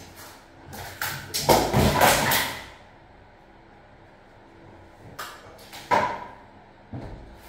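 Knocks and scraping from work on a metal step ladder at a ceiling opening. The loudest stretch of knocking and rubbing is about one and a half to two and a half seconds in. After a quieter spell there are single knocks about five, six and seven seconds in.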